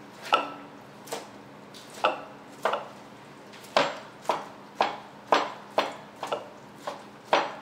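A chef's knife chopping cooked chicken breast on a plastic cutting board: about a dozen sharp knocks of the blade on the board, slow and uneven at first, then about two a second.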